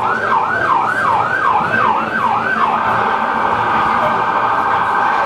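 Electronic vehicle siren sounding: a yelp of about three rising sweeps a second that switches, about two and a half seconds in, to a faster, even warble.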